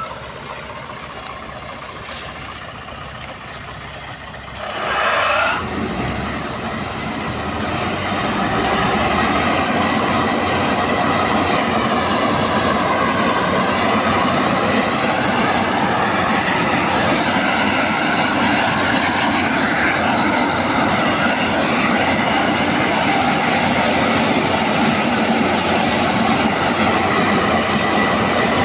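Combine harvester running, a steady mechanical drone with a few held tones. It is quieter at first, swells briefly about five seconds in, then grows louder and stays steady.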